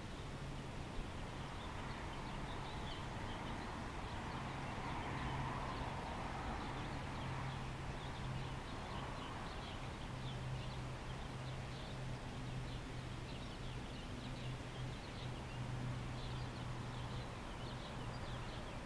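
Outdoor background noise: a steady low hum with faint short chirps, typical of birds in the background.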